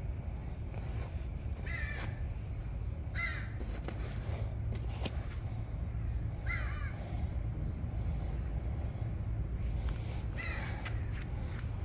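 Puppy giving four short, high-pitched whining yelps, each rising and falling in pitch, spaced a few seconds apart over a steady low hum.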